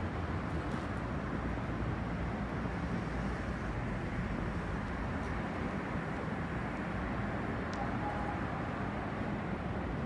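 Steady city street traffic noise, with a CAF Urbos 100 tram approaching slowly from a distance along street-running track.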